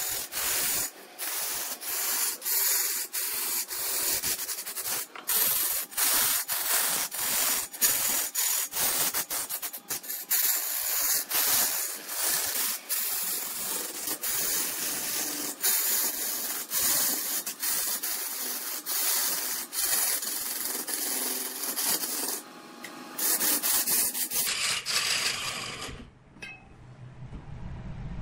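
Wood turning on a large wood lathe: a steady abrasive hiss of the tool or abrasive against the spinning workpiece, broken by many short clicks. Near the end it gives way to a lower rumble.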